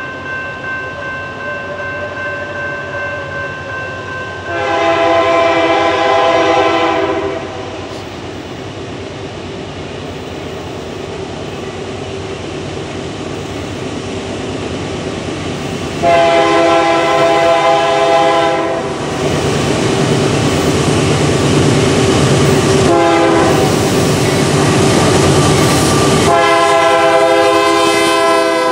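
Union Pacific GE AC4400CW-CTE diesel locomotive sounding its multi-chime horn in a long, long, short, long pattern, the standard grade-crossing signal. Behind the horn, the rumble of the locomotive engines and wheels on rail builds from midway as the train draws near.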